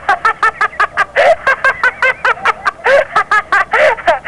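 A person's voice cackling in rapid, high-pitched bursts, about five a second, with no words: wild laughter or whooping.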